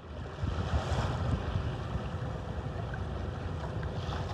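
Wind rumbling on the microphone over the wash of choppy sea waves, a steady low rumble.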